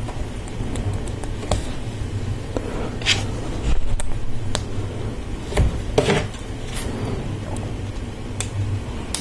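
Plastic LEGO Technic pieces being handled and pressed together: scattered light clicks and a couple of short rustles over a low steady hum.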